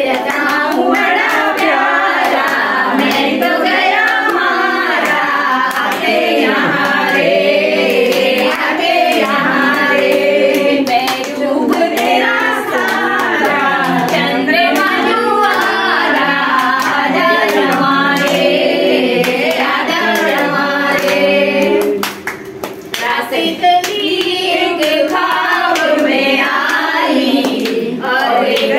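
A group of women singing a song together, keeping time with hand claps. About two-thirds of the way through the singing breaks off briefly, then starts again.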